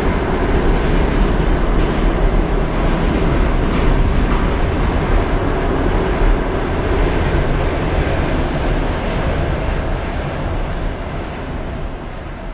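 Train running on the rails, a loud steady rumble that fades over the last few seconds.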